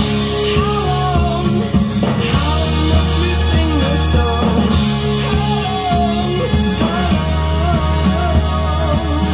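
Rock song with singing, played from a vinyl record on a Realistic LAB-400 turntable through a tube amplifier.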